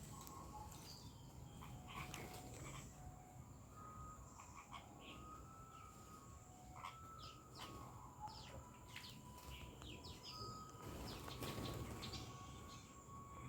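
Small birds chirping faintly: many short chirps throughout, with a few longer, steady whistled notes.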